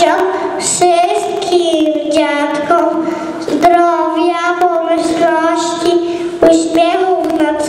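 Young children singing a Polish song, a melody of long held notes that step from one pitch to the next.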